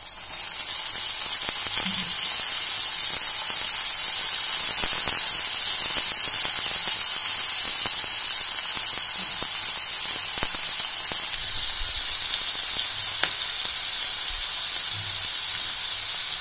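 Carrot and spring onion strips sizzling in hot oil in a metal kadai. The sizzle jumps up just as they drop in, then holds steady.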